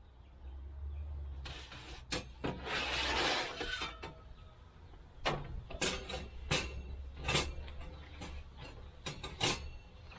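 Steel parts of an Oklahoma Joe's Longhorn smoker being handled: a scraping slide, then a run of sharp metal clanks and knocks as grates and plates are worked loose for removal.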